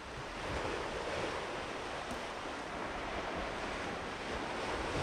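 Sea surf breaking on a rocky shore below, a steady wash of waves, with wind buffeting the microphone.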